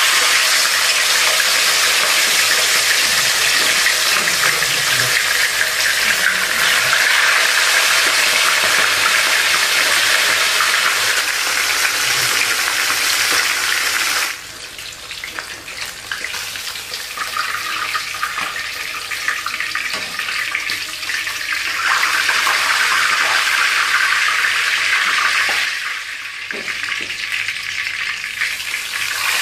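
Whole flatfish frying in hot oil in a wok, making a loud, steady sizzle. The sizzle drops away suddenly about halfway through, swells again later, then falls back near the end.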